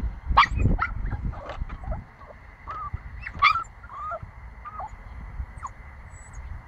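Nine-week-old pomsky puppy yipping and barking in short, high-pitched calls, several in quick succession in the first few seconds, then a few scattered whiny yelps.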